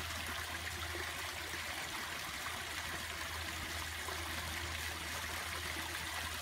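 Small woodland creek trickling over a shallow bed, a steady, even rush of water with a low rumble underneath.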